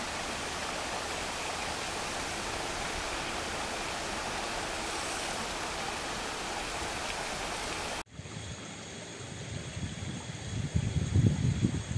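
Steady rush of flowing river water. About two-thirds of the way through it cuts off abruptly, giving way to wind gusting on the microphone, which grows stronger near the end.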